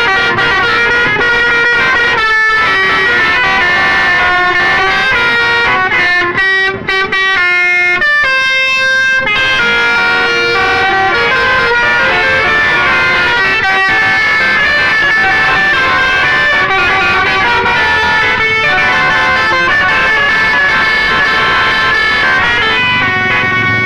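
Bus telolet horns, multi-tone horns from several buses playing tunes over one another. Held notes step up and down in pitch, with a run of quick short notes about seven seconds in.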